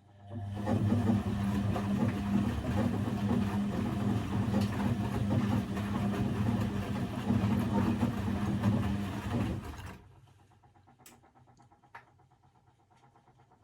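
Old Blomberg 240W washing machine running: after a click, its motor hums with a churning noise for about ten seconds, then stops abruptly. A few faint clicks follow.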